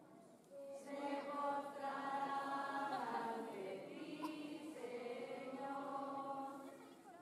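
A group of voices singing together in long held notes, starting up again about a second in.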